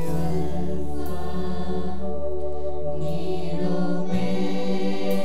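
A worship group sings a slow devotional song together over long held accompaniment chords. The bass note changes about four seconds in.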